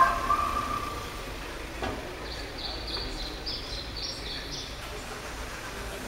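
Street ambience with a steady low traffic rumble. A short, loud tonal sound at the very start, then a bird chirping a quick run of high notes in the middle.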